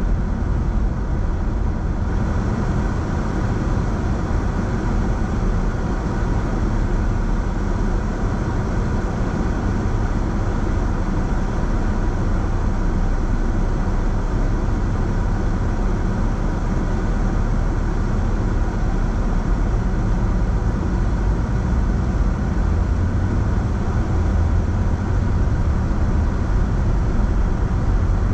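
Steady road noise of a car being driven: a continuous low rumble of tyres and engine with no sudden events.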